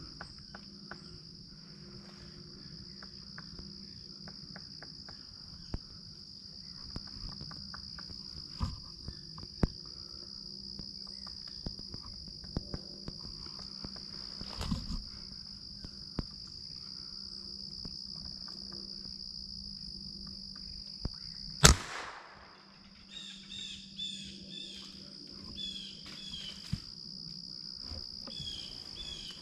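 Woodland insects, crickets and katydids, keep up a steady high drone. About three-quarters of the way through there is one loud, sharp crack that echoes briefly. Short runs of chirping bird calls follow near the end.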